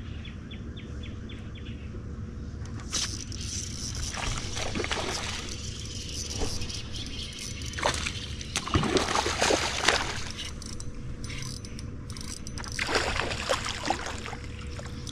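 Water sloshing and splashing in three short spells, over a steady low hum.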